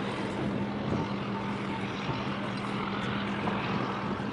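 Ship engines running with a steady low drone: a constant hum and a fainter higher tone over a wash of noise.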